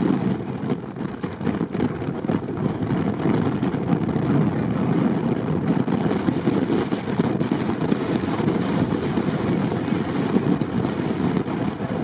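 Mercedes G-Class off-roader's engine running under load while its wheels spin, churning through snow and sand to get unstuck; a steady, unbroken noise throughout.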